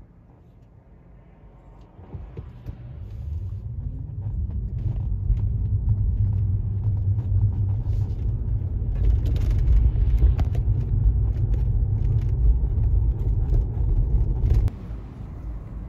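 Car driving on city streets, heard from inside the cabin: a low road and engine rumble that is quiet at first, builds up after about two seconds, and drops off suddenly near the end.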